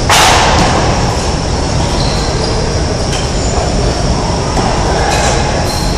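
Steady loud rumble of a large gym hall, with a sudden loud bang at the very start that rings out briefly in the hall.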